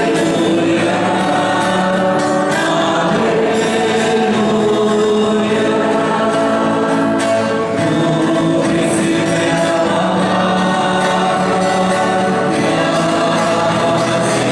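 Church choir singing steadily, the Gospel acclamation sung while the Book of the Gospels is raised and carried to the ambo.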